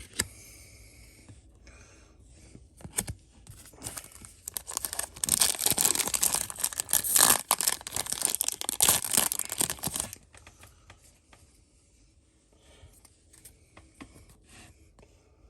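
A foil trading-card booster pack being torn open and its wrapper crinkled: a loud rustling tear lasting about five seconds in the middle, with quieter handling of the pack and cards before and after.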